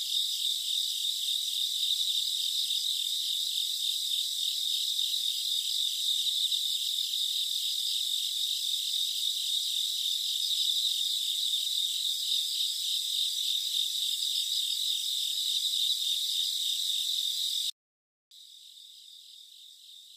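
Crickets chirring steadily, a high, fast-pulsing trill. It cuts off abruptly near the end, then continues much more faintly.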